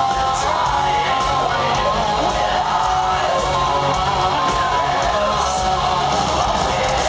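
Melodic death metal band playing live at full volume: distorted electric guitars over drums, with repeated cymbal crashes.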